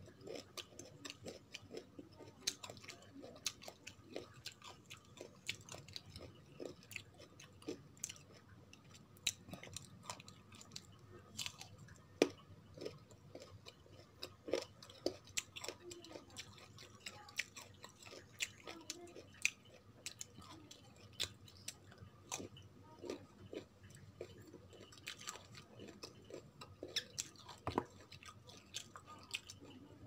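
A person biting and chewing slices of raw green mango: crisp crunching made of many irregular, sharp crackles.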